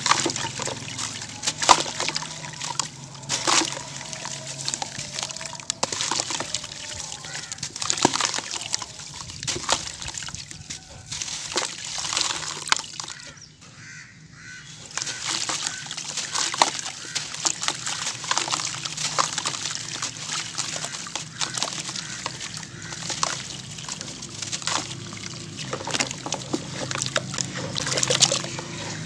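Dry sand-cement blocks crumbled by hand into a bucket of water: gritty crunching and crackling as the blocks break, with powder and lumps pattering and sloshing into the water. There is a brief lull about halfway.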